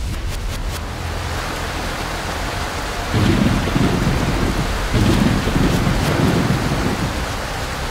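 Thunderstorm sound effect: steady rain hiss with two long rolls of thunder, the first about three seconds in and the second about five seconds in.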